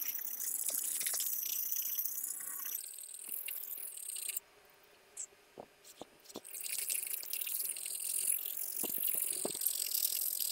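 Steel knife blade scraped back and forth across a wet brick used as a sharpening stone, making a steady gritty hiss. The grinding stops for about two seconds in the middle, with a few light knocks, then starts again.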